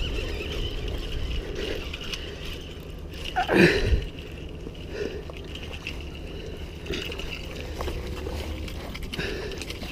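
Steady wash of heavy rain and moving water, with one brief loud sweeping sound about three and a half seconds in.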